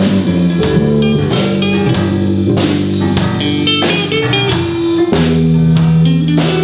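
Live band of guitar and drum kit playing an instrumental stretch of a rock-and-roll song, with steady drum hits under sustained guitar and bass notes.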